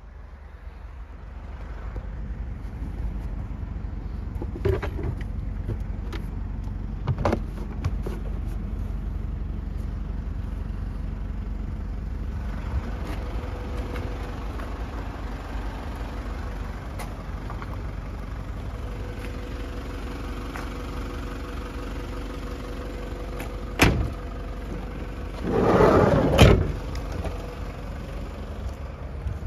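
Nissan Elgrand's 3.0 L diesel engine idling with a steady low rumble, heard from inside the van. A few sharp knocks from the camper fittings being handled, and a louder rustling clatter ending in a thud about 26 seconds in.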